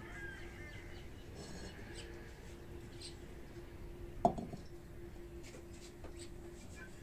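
A single knock of a terracotta clay bowl set down on a concrete counter about four seconds in, ringing briefly, over faint bird chirps and a steady low hum.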